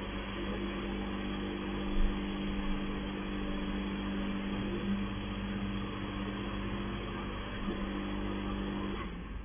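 Touchless car wash's high-pressure pump running with water spray hissing, a steady hum that stops about nine seconds in, with a brief knock about two seconds in.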